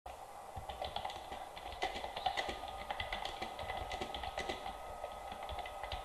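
Typing on a computer keyboard: a run of quick, irregular keystroke clicks.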